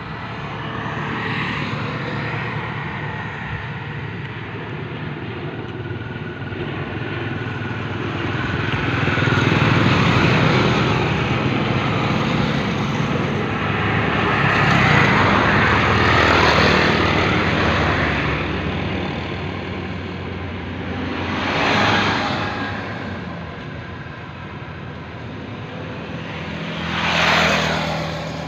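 Small propeller aircraft engine droning steadily, growing louder and fading twice, then two brief louder swells near the end.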